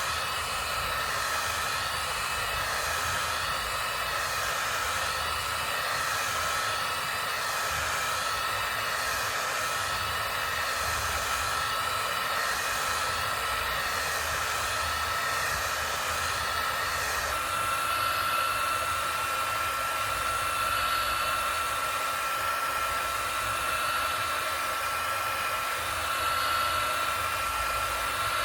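A steady whooshing noise like a small electric fan or blower running, with a thin, steady high whine in it; its character shifts slightly about two-thirds of the way through.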